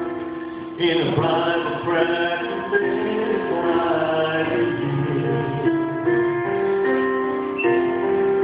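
A man singing into a microphone over instrumental accompaniment, in long held notes.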